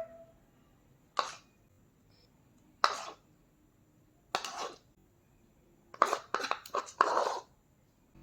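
A spoon scraping and tapping against a bowl as curd is spooned out: three separate short scrapes, then a quick run of them about six seconds in.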